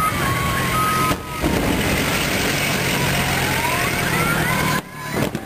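Siren-like whistling during a pyromusical fireworks display. A held whistle breaks off and glides down about a second in, then rising whistles sound over a steady low hum.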